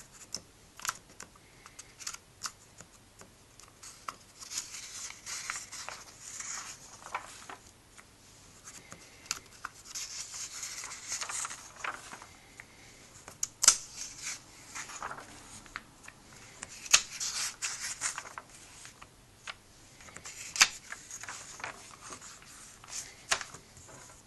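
Pages of a comic book being flipped and handled: paper rustling and swishing in short bursts, with crisp clicks as pages snap over, the loudest around the middle and near the end.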